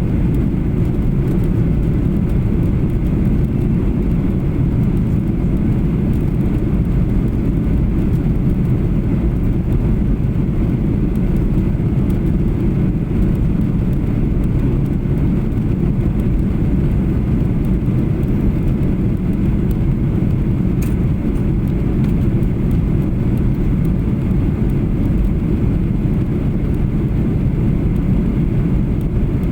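Steady low rumble of engine and airflow noise inside the cabin of a Boeing 737-800 airliner in flight on its descent, with no change in level.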